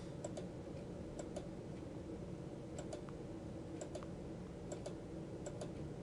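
Faint computer mouse-button clicks, several in close pairs, about one a second, each placing the next control point of a spline in a drawing program.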